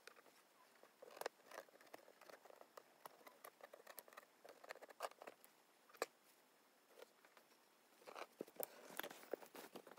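Faint handling sounds of hand embroidery: fingers, thread and a small metal tool scratching, tapping and rustling on taut linen stretched in an embroidery hoop, a scatter of small clicks that gets busier near the end.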